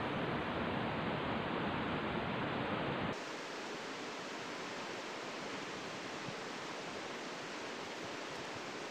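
Steady outdoor hiss of riverside ambience, with no distinct events; about three seconds in, the low rumble drops out abruptly and the hiss becomes thinner and a little quieter.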